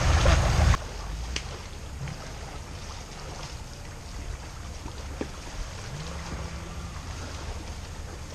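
Lake water lapping and splashing at the shoreline. Wind rumbles on the microphone for under a second, then cuts off abruptly, leaving the quieter lapping.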